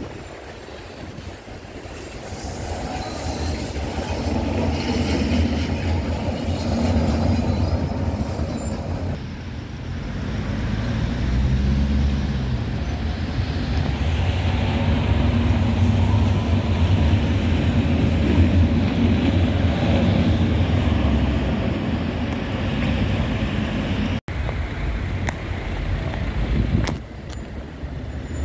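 Busy street traffic: car and van engines and tyres running steadily, with V3A articulated electric trams passing close by, the level swelling and easing as vehicles go past.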